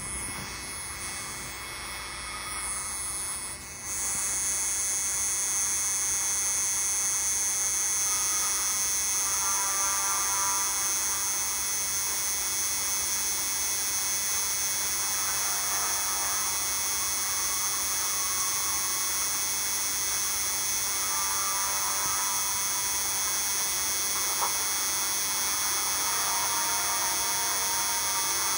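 Steady electronic hiss and hum made of several fixed high tones, which gets louder about four seconds in and then holds level; faint wavering mid-pitched tones come and go over it.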